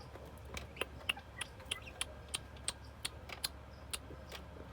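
A string of sharp, irregular clicks or taps, roughly two to three a second, over a faint low hum.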